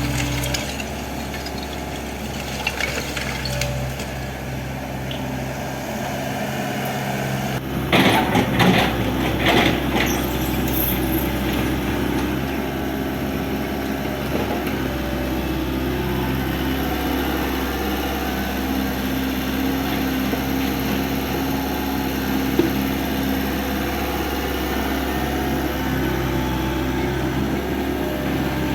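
Hydraulic excavator's diesel engine running steadily. About eight to ten seconds in there is a cluster of knocks and crashes from the demolition work.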